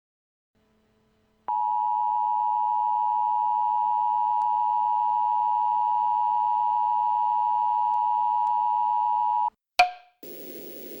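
Emergency Alert System attention signal: the two-tone alert (853 and 960 Hz) comes in about a second and a half in, holds steady for about eight seconds and cuts off suddenly. A short click follows near the end, then a low hiss.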